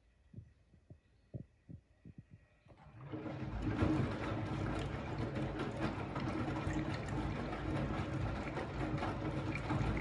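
Candy front-loading washing machine on its wash cycle: a few soft knocks from the idle drum, then about three seconds in the drum starts turning and runs steadily, its motor humming under the slosh of water and wet laundry tumbling.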